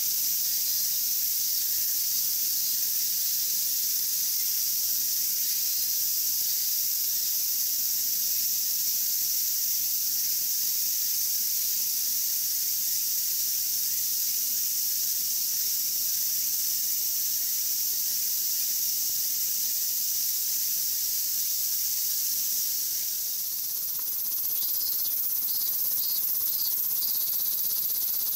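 Steady, high-pitched droning of summer cicadas. Near the end, a few short pulsing insect calls come in over it.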